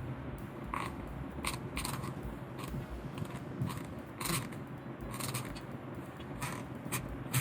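Scissors cutting mesh in a series of short, irregular snips, about ten in all, over a faint steady low hum.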